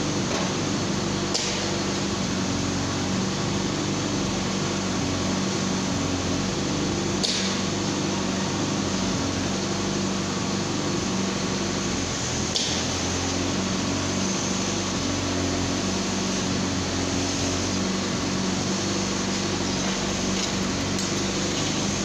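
Steady machine hum with a low drone that wavers in strength, and a few faint clicks.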